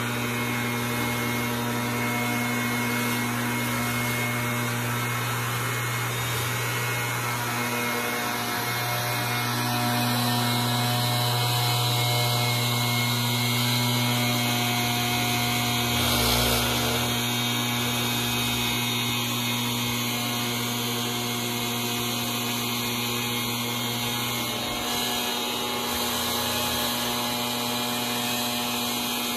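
Stihl BR 430 two-stroke backpack leaf blower running steadily, its air driven up a long PVC pipe extension to blow leaves out of a roof gutter.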